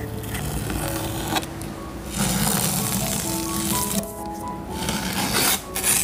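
Background music with soft held notes, over a close, scratchy rubbing of paint being scrubbed onto textured canvas in stretches of a second or so.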